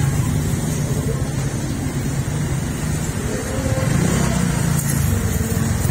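Steady low rumble of street traffic, with motor vehicle engines running close by.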